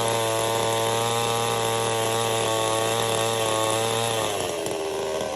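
Total 62cc two-stroke chainsaw held at high revs with a steady pitch. About four seconds in the throttle is let off and the engine speed falls toward a lower, rougher run.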